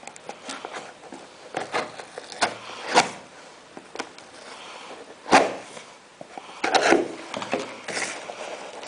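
Cardboard box packaging being cut and opened by hand: irregular scrapes and rustles, with sharp knocks about three and five seconds in.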